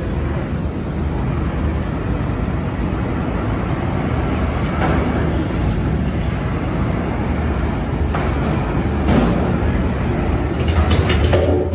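Front-loader garbage truck's diesel engine running as its hydraulic forks lift a dumpster over the cab and tip it. Metal clanks and bangs come from about five seconds in, with a cluster of knocks near the end.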